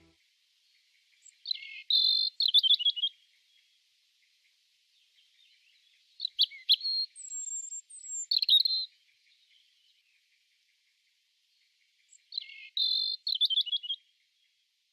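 A songbird singing three short, high-pitched phrases, about a second and a half in, around six seconds in and near the end, with silence between. Each is a run of quick chirps and a rapid trill; the first and last phrases are alike, and the middle one includes a couple of thin whistled notes.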